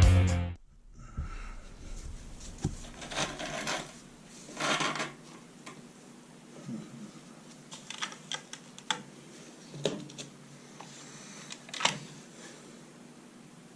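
Rock music cutting off about half a second in, then scattered light clicks and knocks with a couple of short rustles, over a faint steady hum.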